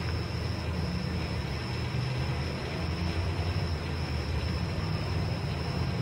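A steady low outdoor rumble, such as wind on the microphone or distant traffic, with a thin steady high hiss above it; no siren tone is heard.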